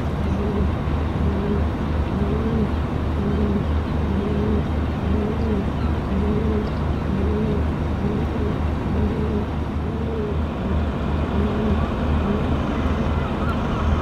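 A large engine running steadily: a low drone with a note that rises and falls a little faster than once a second.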